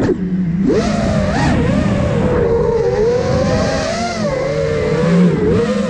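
Brushless motors and propellers of a 5-inch FPV freestyle quadcopter (iFlight Nazgul Evoque F5), heard from its onboard camera, whining with a pitch that rises and falls as the throttle changes, with a brief dip near the end.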